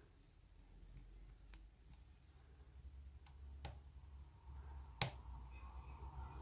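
Lock pick working inside a BiLock oval cylinder: a few faint, scattered metallic clicks, the loudest about five seconds in, from the pins giving feedback as they are picked.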